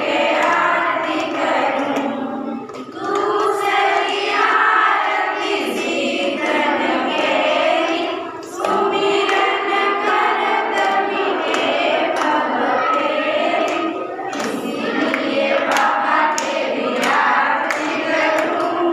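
A group of women and girls singing a devotional song together in unison, clapping along by hand, with brief pauses between lines; the claps come through more sharply near the end.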